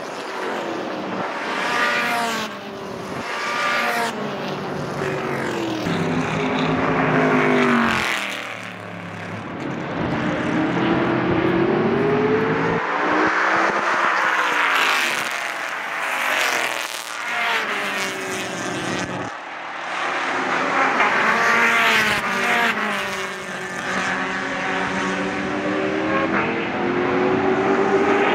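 Race cars running past at speed, their engines revving up through the gears in repeated rising sweeps, with long rising and falling changes in pitch as cars approach and pass.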